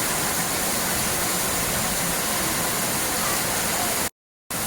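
Steady rush of flowing water, broken by a brief cut to dead silence near the end.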